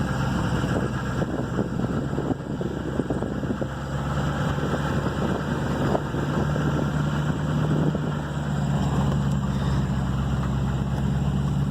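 Pickup truck heard from inside the cab, its engine running steadily while it drives over a rough farm lane, with constant rattling and knocking; the owner puts the rattle down to a CV shaft.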